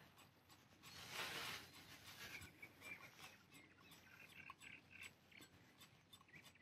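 Near silence: faint scattered ticks and a brief soft rush of noise about a second in.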